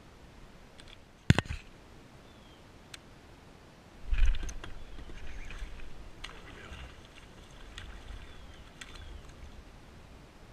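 Handling noises in a plastic kayak while fishing: a sharp knock about a second in, then a louder rushing scuff about four seconds in that slowly dies down. A few faint clicks follow as a baitcasting reel is worked.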